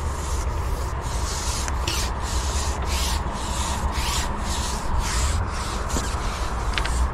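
Repeated rubbing strokes, about two a second, over a steady low rumble.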